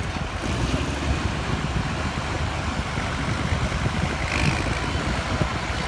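Farm tractor engine running hard under load, pulling a weight sled down the track in a tractor pull; a steady even rumble with no let-up.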